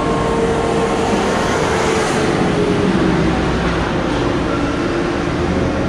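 A forklift running close by: loud, steady engine noise with a hum that wavers slightly in pitch.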